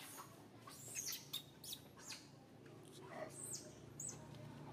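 A scatter of short, high chirping calls, about a dozen in a few seconds, each sweeping quickly down in pitch, over a faint steady low hum.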